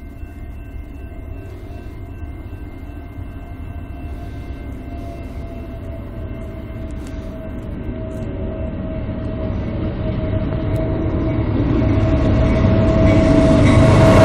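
BNSF freight train led by GE C44-9W diesel locomotives approaching at speed, its rumble growing steadily louder until the lead locomotive reaches the platform near the end. A steady whine runs under it.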